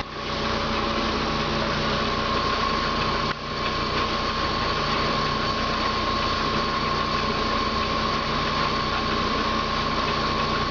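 Old belt-driven machine-shop machinery running steadily off overhead line shafting powered by a 5-horsepower electric motor, with a metal lathe turning. There is a steady high whine over a constant low hum, with a brief dip about three seconds in.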